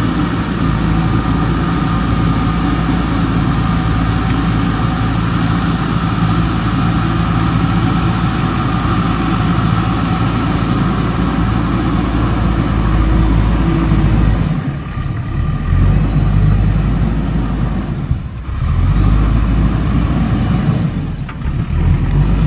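Diesel engine of a JCB backhoe loader running steadily at working revs, with the engine note and loudness dropping briefly three times in the last third.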